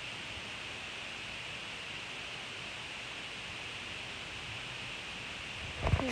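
Steady hiss of background noise, then a loud burst of rustling just before the end.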